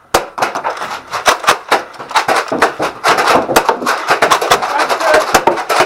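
Nerf blasters firing and foam darts striking in a rapid, uneven string of sharp clicks and knocks, many overlapping, over a steady din.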